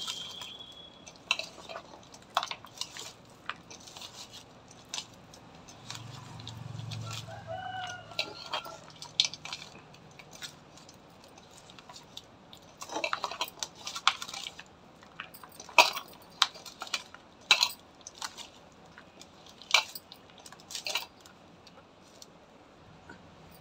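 Bangles clinking against a steel bowl while rice is mixed by hand, in scattered sharp clicks that come thickest in the second half. A faint short pitched call sounds around seven seconds in.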